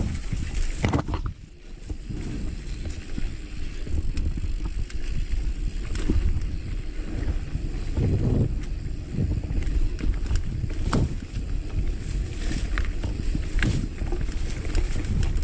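Mountain bike riding down a dry dirt singletrack: tyres running over the trail with a steady low rumble, scattered clicks and rattles from the bike over bumps, and a heavier thump about eight seconds in.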